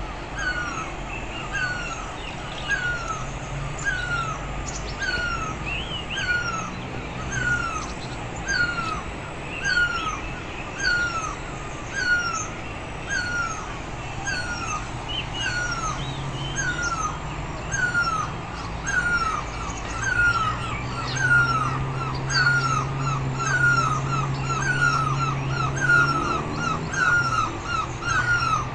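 Birds calling: one bird repeats a short, hooked call about once a second, a little faster near the end, over fainter higher calls from other birds and a low steady hum.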